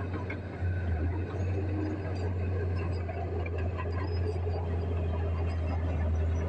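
Small crawler bulldozer's diesel engine running steadily under load as it pushes soil, with rattling and clanking from the machine and its tracks. The engine gets louder about half a second in.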